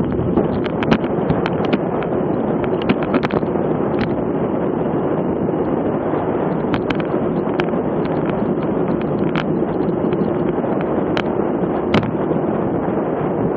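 Steady wind rush over the microphone of a bike-mounted action camera and road noise from a road bike at race speed, around 20–25 mph, with a faint steady hum. Sharp clicks come every second or so at irregular intervals.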